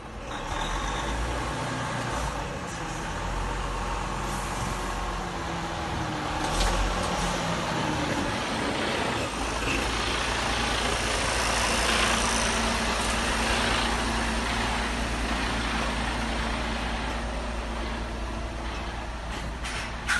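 Mercedes-Benz heavy truck with its diesel engine running as the tractor-trailer creeps past at walking pace, a steady low engine hum over tyre and road noise. A single sharp click comes near the end.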